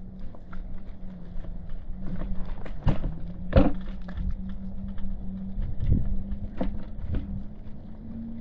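Street sound of footsteps on pavement, with several louder knocks in the middle, over a steady low hum.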